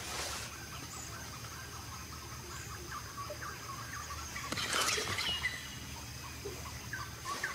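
Rainforest ambience: a steady high drone with scattered small chirps, and a louder rustle of leaves and branches about five seconds in as a Bornean orangutan climbs through the tree.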